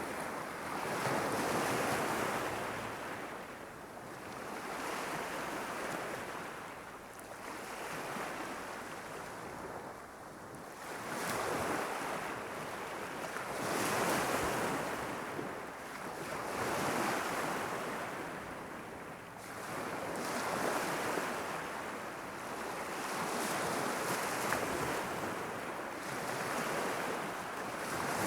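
Gentle Irish Sea waves lapping against the shore, each wash of surf swelling and fading every few seconds.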